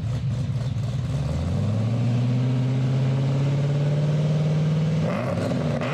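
Supercharged LS7 V8 idling choppily on its lumpy cam, then given a slight rev about a second and a half in and held at a steady higher speed for about three seconds before dropping back near the end.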